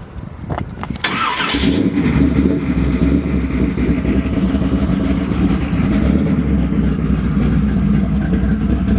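406 small-block Chevrolet V8 cranks briefly and catches about a second and a half in, then runs at a steady, loud idle through long-tube headers and dual exhaust, with the exhaust cutouts still closed.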